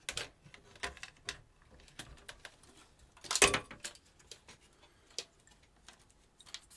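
Scattered light clicks and knocks of circuit boards and flat ribbon cables being handled and lifted out of a synthesizer's metal chassis, with a louder clatter about three and a half seconds in.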